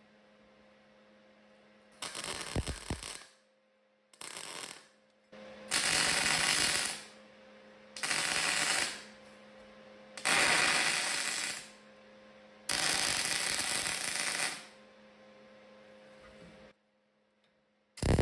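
Electric welding: about seven short welds of one to two seconds each, the arc sounding in bursts with short pauses between them, over a steady low hum.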